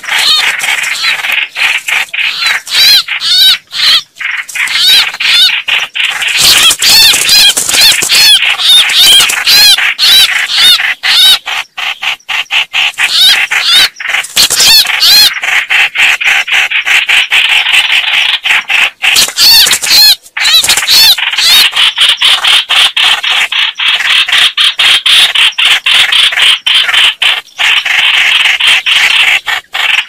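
Red-whiskered bulbuls giving agitated fighting calls: a loud, rapid, unbroken stream of short harsh chattering notes, turning noisier and harsher after about six seconds.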